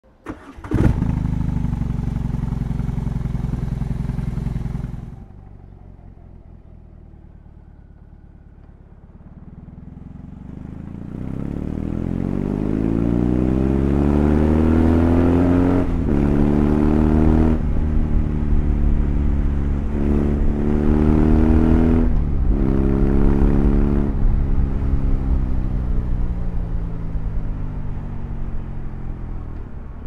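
BMW R18's 1,802 cc boxer twin engine. It comes in suddenly just under a second in, runs loud and steady, and drops quieter at about five seconds. From about ten seconds it accelerates hard at full throttle, its pitch rising and dropping back at several upshifts about two seconds apart, then settles into a steady run.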